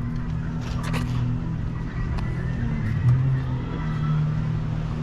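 A motor vehicle's engine running steadily with a low hum, with a few short clicks about a second in.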